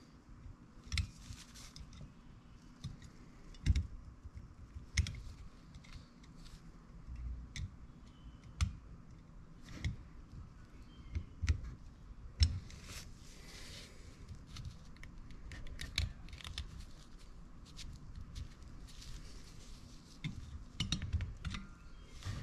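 Irregular small metallic clicks, scrapes and taps, with a few louder knocks, as a flat tool pries and presses the small clutch springs of a 1970 Honda CT90 clutch into their grooves in the clutch housing.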